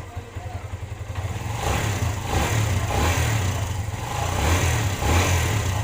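Kawasaki Barako 175's single-cylinder four-stroke engine running and revved in several short blips from about a second and a half in. It runs and starts easily now that its hard starting has been cured with a new spark plug.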